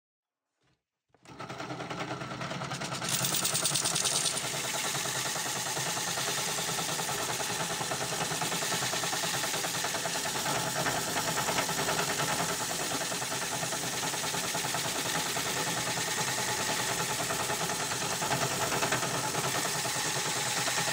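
Bench drill spinning a drum sander attachment against the curved inner edge of a wooden workpiece. The motor's steady hum comes with an even hiss of abrasive on wood. It starts about a second in and is slightly louder for a moment at around three to four seconds.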